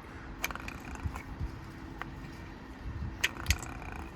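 Precept washing machine running with a steady low hum, with a few sharp clicks and light knocks, two close together near the end.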